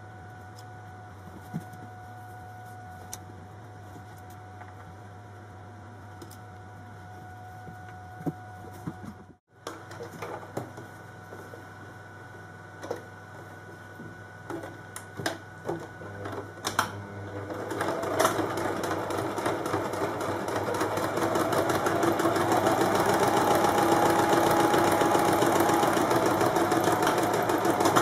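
Domestic electric sewing machine stitching a dart: a few short starts, then from about two thirds of the way in it runs fast and steadily. Before it, scattered light clicks and taps from handling the fabric.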